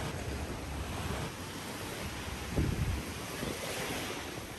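Wind buffeting the microphone over small waves washing onto a sandy beach, with a brief stronger low gust about halfway through.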